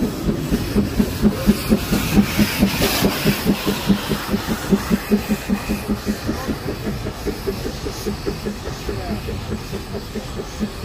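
Narrow-gauge steam tank locomotive working along the track: steady exhaust chuffs, about four a second, over a hiss of steam. The beats are strongest in the first half and ease somewhat later on.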